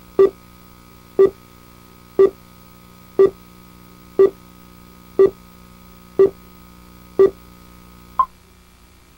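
Countdown beeps from a commercial's slate leader: a short tone once a second, eight alike, then a ninth shorter, higher beep, over a steady low hum that cuts out right after it.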